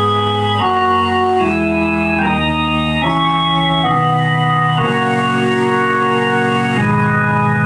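Electric organ playing a slow run of held chords, each sustained without fading and changing about once a second, over a low bass line.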